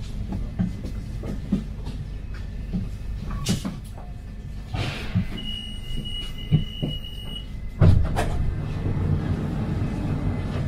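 CAF automatic metro train running, a steady low rumble with scattered clicks and knocks from the running gear. A steady high-pitched beep sounds for about two seconds midway, and there is a loud knock about eight seconds in.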